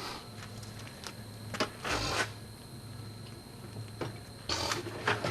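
Hand tools clinking and rattling in short bursts while a 17 mm bolt is being worked loose, over a steady low hum.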